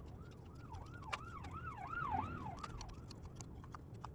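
A faint siren wailing, its pitch sweeping up and down rapidly a few times a second for about two seconds, over scattered light clicks.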